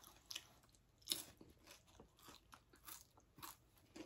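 Faint crunching and chewing of crunchy food close to the microphone: a handful of short, separate crunches, the loudest a little after one second in.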